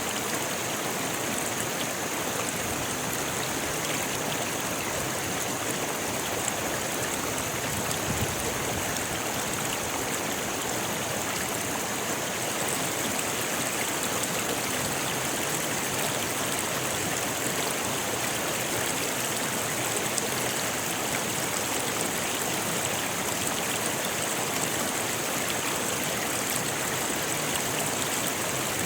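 A rocky river rushing steadily over stones: a continuous, even wash of water noise with no pauses.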